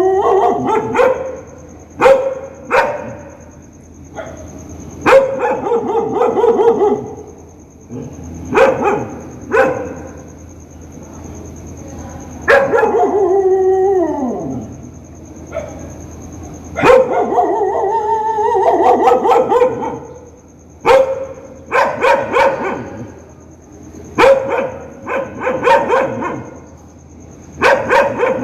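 A dog barking angrily and repeatedly, in short sharp barks and longer drawn-out ones, with one long call that falls in pitch about halfway through.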